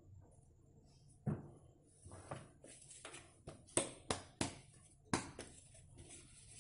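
An aluminium cake tin full of batter knocked down on a stone countertop again and again to settle the batter: about eight sharp knocks, several in quick succession near the middle.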